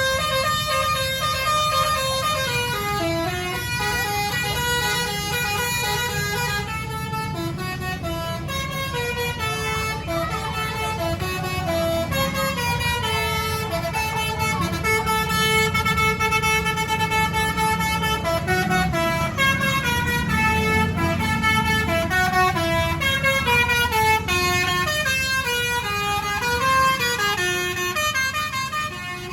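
Bus's basuri V3 telolet horn playing a tune, a melody of held notes stepping up and down, over a steady low rumble.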